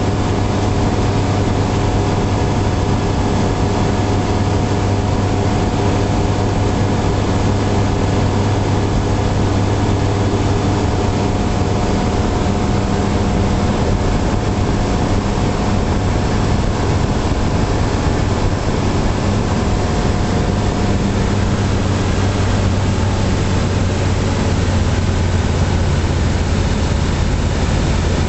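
Light aircraft's engine and propeller running steadily in flight, a constant drone heard inside the cockpit.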